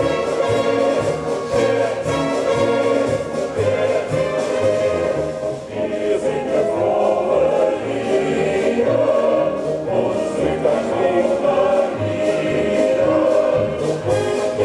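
Live orchestra and choir performing classical music, with a steady beat in the bass notes.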